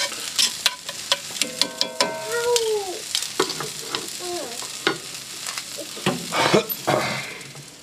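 Chopped green onions and bell peppers sizzling and frying in a cast iron skillet on a grill, with many small crackles and pops.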